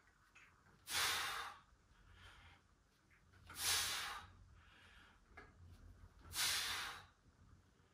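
A person's hard exhalations during dumbbell presses: three loud hissing out-breaths about two and a half seconds apart, one with each push, with quieter breathing between.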